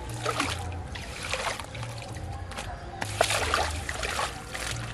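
Several sharp splashes in shallow ditch water as a fish caught on a hook line thrashes at the surface, over background music with a low bass.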